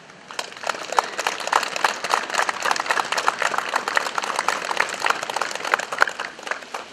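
A small group of people applauding with their hands. It starts about half a second in and dies away near the end.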